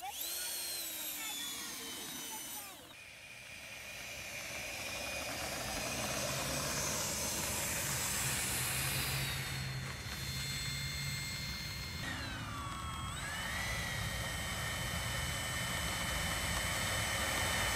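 Whine and rush of a radio-controlled F-104 Starfighter model jet's electric ducted fan while taxiing. The pitch climbs sharply as the throttle opens at the start, then eases off, and dips and climbs again about twelve seconds in.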